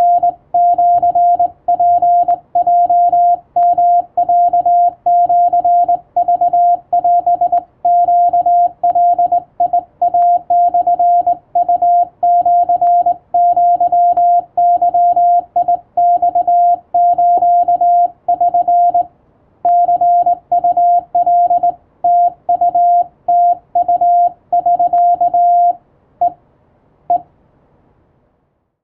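Morse code sidetone: a steady beep keyed on and off by hand with a straight key into dots and dashes, sending Japanese wabun Morse at about 60 characters a minute. The sending stops about 26 seconds in after a few last short elements.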